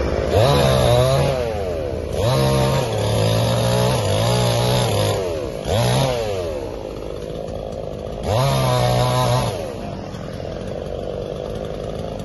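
Two-stroke chainsaw cutting up a fallen tree, revved up four times for one to three seconds each and dropping back toward idle between.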